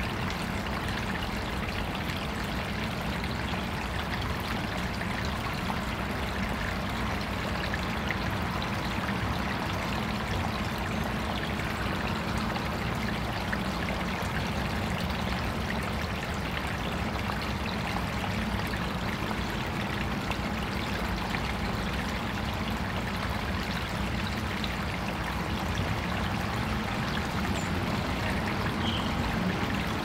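Water of an artificial backyard stream running steadily in a continuous trickle.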